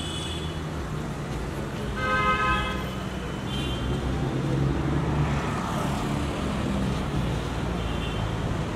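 Street traffic with car engines running, and car horns honking over it: a longer honk about two seconds in, and shorter toots just after three seconds and near the end.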